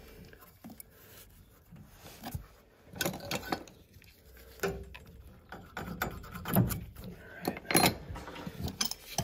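Irregular clicks, taps and rubbing as a gloved hand handles a brass tub drain tee between wooden floor joists.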